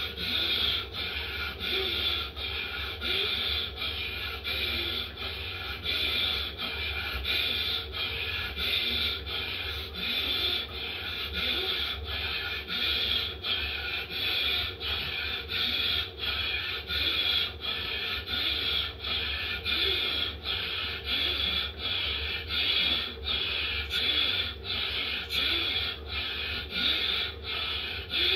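Fast, forceful breathing in a steady rhythm, about three rasping breath strokes every two seconds, in as the arms go up and out as they come down: a yogic breathing exercise done at speed.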